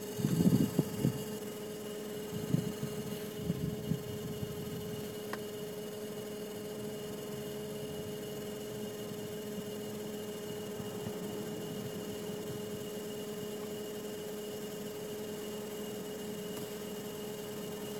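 BMW E60's interior blower fan running with an abnormal steady hum. A few knocks are heard in the first four seconds.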